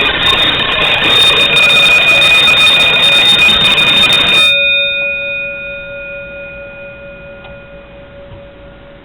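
Standard Electric/Johnson Controls SAU-3-1 fire alarm bell ringing, then cut off about four and a half seconds in. Its gong rings on after the cutoff and slowly fades away.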